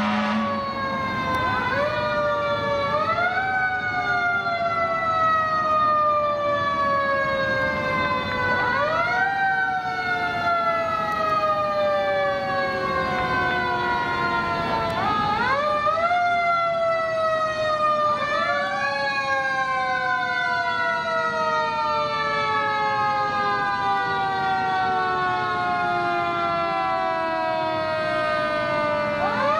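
Several fire engine sirens wailing together, out of step. Each wail climbs quickly in pitch, then slowly winds down over several seconds before the next rise.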